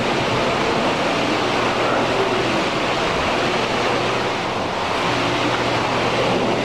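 Steady rushing background noise with a faint low hum, even in level throughout.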